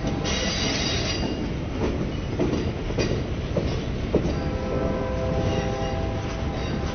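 Norfolk Southern RoadRailer train, highway trailers riding on rail bogies, rolling past with a steady rumble and scattered knocks of wheels over the rail joints. A high squeal rises briefly near the start, and a steadier, lower squealing whine sets in after about four seconds.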